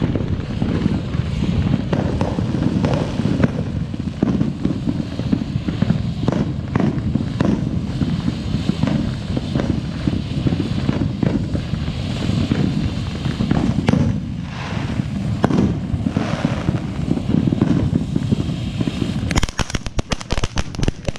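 TNT Pyromixer ground fountain firework burning: a steady hissing spray of sparks with scattered crackles. About nineteen seconds in it breaks into a dense run of rapid crackling pops.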